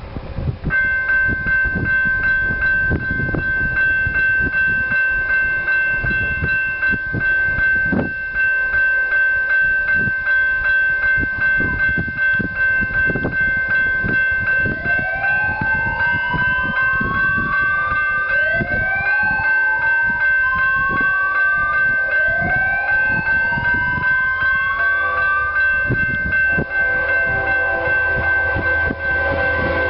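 Loram rail grinder's warning siren sounding as a train approaches. A steady high tone starts about a second in and holds, and in the second half three rising wails climb one after another over it. Irregular low rumbling runs underneath.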